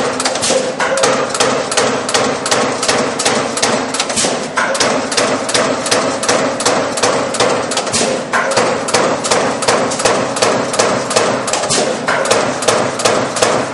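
Mechanical CNC turret punch press punching thin stainless steel plate at high speed: a continuous, even run of sharp metallic hits, about three to four a second, over a steady hum.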